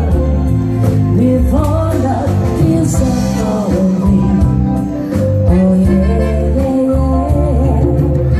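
A woman singing into a handheld microphone, with a live band playing behind her and a steady bass line underneath.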